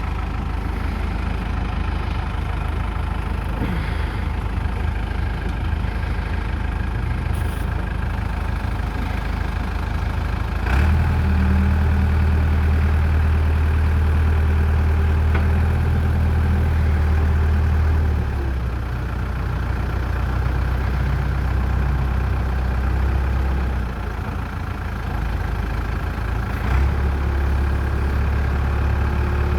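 New Holland LB75 backhoe's diesel engine running steadily. It gets louder about a third of the way in for several seconds, then again near the end.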